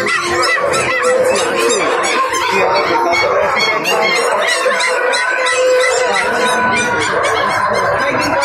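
A dense, unbroken din of many overlapping animal calls from the caged birds and puppies of a pet market, short rising-and-falling cries crowding one another at a steady level.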